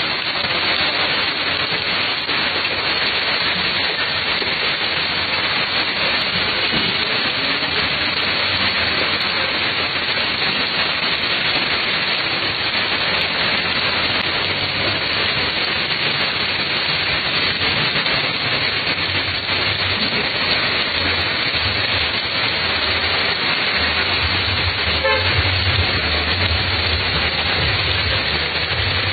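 Heavy rain pouring steadily onto a flooded street, a dense unbroken hiss. A low vehicle rumble grows under it in the last few seconds as traffic moves through the water.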